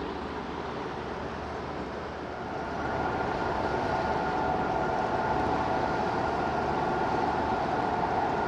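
Steady mechanical hum with a held whine, growing louder about three seconds in and then running on evenly.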